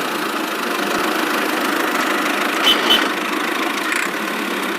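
A small motor running steadily, with two quick clicks a little under three seconds in.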